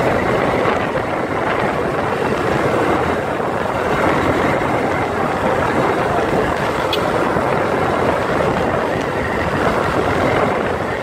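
Steady rush of wind and motorcycle noise while riding along.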